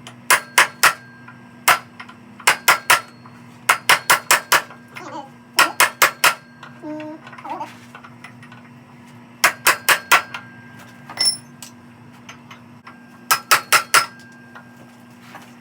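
A hammer striking steel in quick runs of three to five ringing blows, with pauses between the runs, over a steady low hum.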